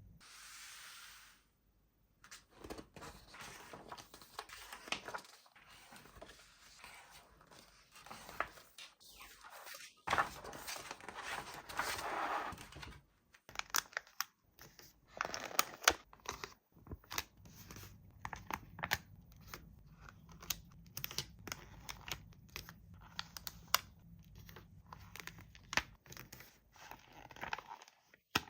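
Toy packaging being opened by hand: paper or plastic tearing, crinkling and rustling, with many sharp clicks and snaps in the second half.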